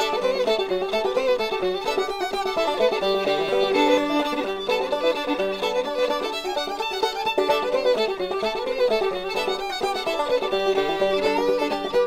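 Instrumental background music with a fast, busy melody of short notes.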